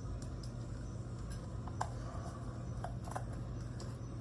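A few light clicks and taps from small objects being handled, over a steady low hum.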